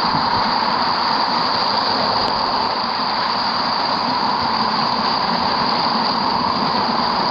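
Waterfall's flowing water rushing steadily.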